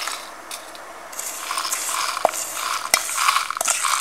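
Dry-roasted whole spices (coriander seeds, cumin, fennel, peppercorns, cloves) and dried red chillies poured from a pan into a stainless-steel mixer-grinder jar. The seeds patter and rattle against the steel, louder after about a second, with a few sharp clicks.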